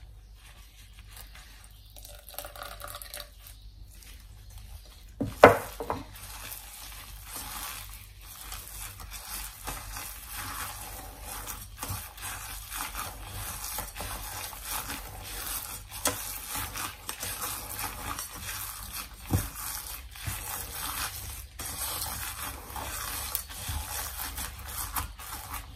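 A gloved hand mixing and kneading mashed mung beans with sugar and grated coconut in an aluminium pot: a steady rubbing and scraping of the paste against the metal, fuller from about six seconds in. There is a sharp knock about five seconds in and a smaller one later.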